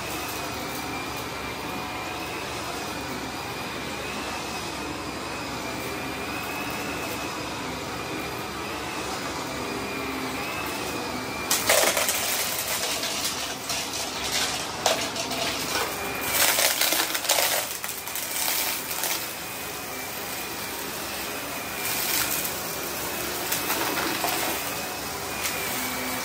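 Vacuum cleaner running on carpet with a steady high whine; from about halfway through, irregular crackling and rattling as confetti is sucked up.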